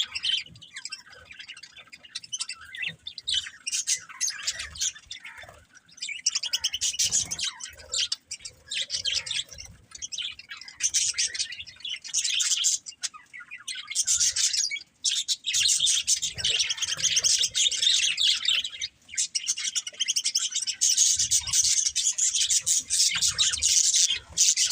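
Budgerigars chirping and chattering in fast, continuous high-pitched warbles, with brief pauses, busier and more continuous in the second half.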